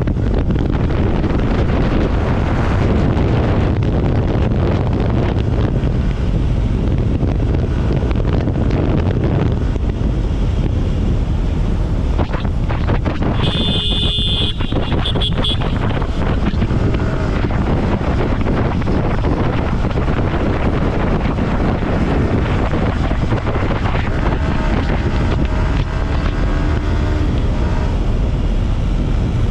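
Steady wind rushing over the microphone of a Yamaha R15 V4 rider at about 80–100 km/h, with the bike's engine and road noise underneath. About halfway through, a short high two-part beep sounds.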